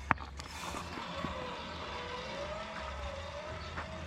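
Zip line trolley pulley rolling along the steel cable: a sharp click as it sets off, then a whine that wavers up and down in pitch for about three seconds as the ride runs.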